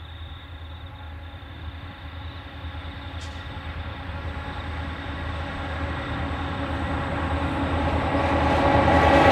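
Diesel-electric locomotives hauling a container freight train approach, their engines droning steadily and growing louder throughout.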